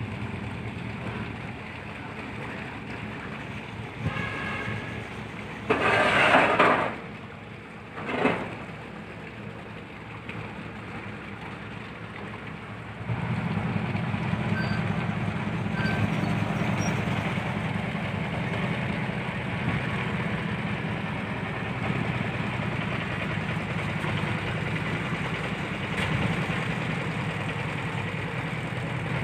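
A cargo barge's engine running steadily under way. About thirteen seconds in, its low hum steps up sharply and stays louder. Two short loud bursts of noise come about six and eight seconds in.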